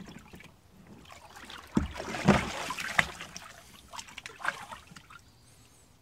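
Plastic tub scooped into pool water and lifted out, the water splashing and sloshing in it. The loudest splashes come about two to three seconds in, with a few smaller ones a little later.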